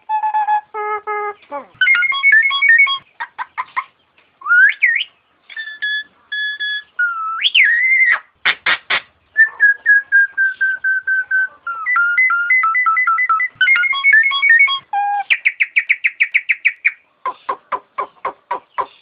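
Nias hill myna calling: a varied string of loud whistled notes and rising and falling glides, broken by sharp clipped notes and fast runs of repeated notes, several a second.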